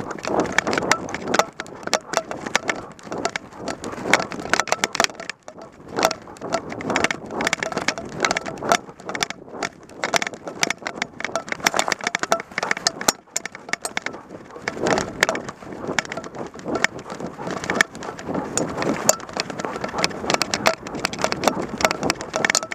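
Dense rustling, scraping and knocking from a dog-mounted camera as the dog runs through forest undergrowth, with vegetation and fur brushing against the camera.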